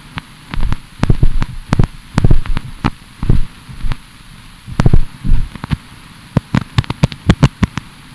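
A series of irregular sharp knocks and thumps, some in quick clusters, with longer gaps around the middle.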